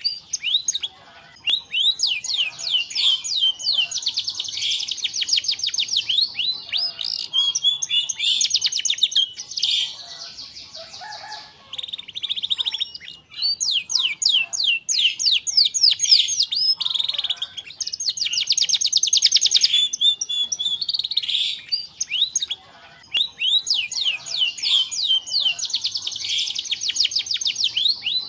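Domestic canary singing long phrases of fast rolling trills mixed with whistled notes, broken by a few short pauses.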